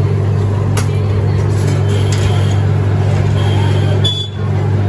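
Steady loud mechanical hum, with a few sharp metal clinks as grilled chicken pieces are pushed off metal skewers into a steel bowl.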